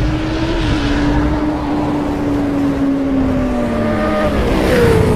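Truck engine running while driving, its drone slowly falling in pitch and then jumping higher about four and a half seconds in.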